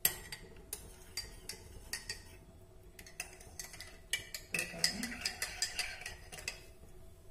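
Irregular clinks and taps of a metal spoon and kitchen vessels being handled, several with a short ring, with a brief scraping rattle about halfway through.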